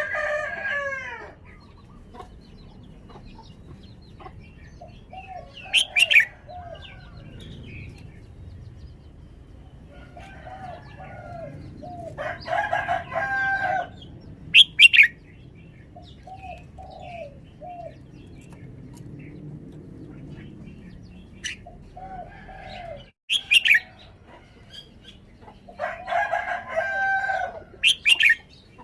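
Red-whiskered bulbul singing: short bubbly warbled phrases in bursts every few seconds, with sharp high notes between them.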